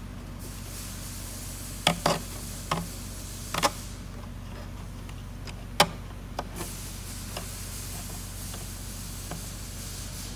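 A handful of sharp, irregular clicks and taps as a plastic zip tie is threaded through a perforated metal cover and pulled snug around a wire bundle, over a steady low electrical hum.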